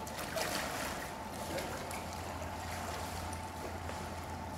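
Pool water splashing and sloshing as a swimmer pushes off the wall and glides underwater, strongest in the first second, over a steady low hum.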